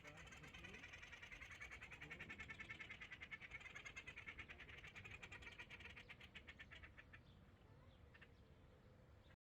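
Faint, fast pulsing trill from an animal, many pulses a second, fading out about seven seconds in.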